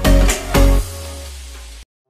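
Music with two strong bass beats, then a held low note that cuts off suddenly near the end.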